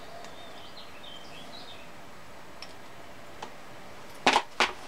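Two sharp metallic clicks close together about four seconds in, as a steel rule and a small lathe chuck are handled and set down on the bench tray. Faint high chirps in the first couple of seconds.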